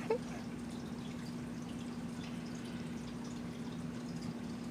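Steady low electrical hum over faint background hiss: room tone with no distinct events.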